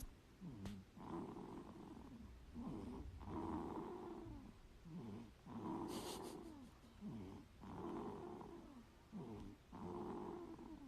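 Newborn baby snoring softly, one snore with each breath, repeating about every two seconds.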